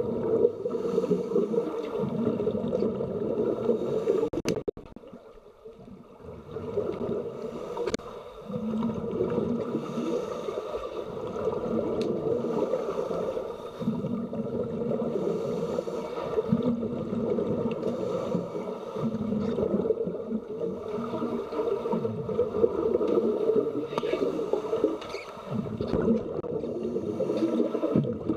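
Muffled underwater noise recorded below the surface of a swimming pool, with the bubbling and gurgling of scuba divers' exhaled breath. It drops away briefly about five seconds in, just after a sharp click.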